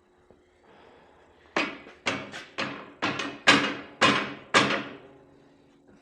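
Hammer blows on metal plow hardware: about seven sharp strikes, roughly two a second, each ringing briefly, starting about a second and a half in.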